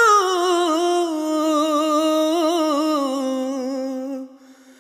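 A male singer holding one long wordless note that slowly slides down in pitch, with a slight vibrato, fading out about four seconds in.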